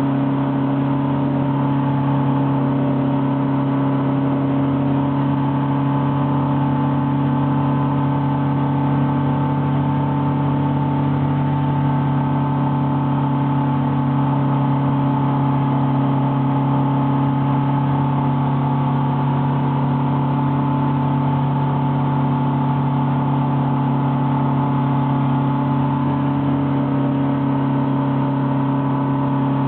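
Steady drone of a light aircraft's piston engine and propeller, heard from inside the cabin, holding one even pitch throughout.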